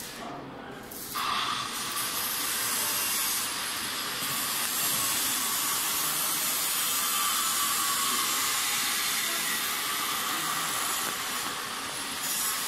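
Steady, loud hissing rush of machinery noise in a feed pellet plant, jumping up about a second in and then holding level.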